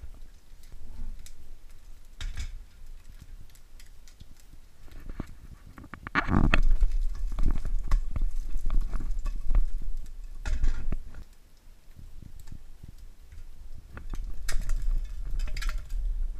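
A nonstick frying pan being handled and tipped over a plate as a fried egg is served: irregular knocks and scrapes, the loudest clatter about six seconds in, over a low rumble.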